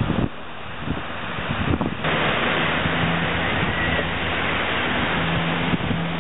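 Surf washing on a beach with wind on the microphone. About two seconds in, this gives way to a louder, steady rushing noise with a low, even drone: the propeller engines of a firefighting water-bomber aircraft flying over the hillside, heard through wind buffeting.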